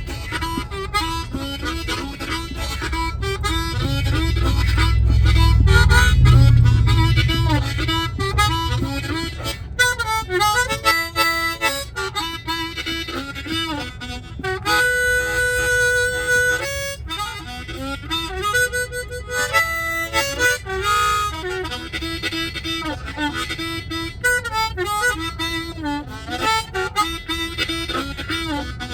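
Harmonica playing a tune of chords and held notes that shift every second or so. A low rumble swells and fades a few seconds in.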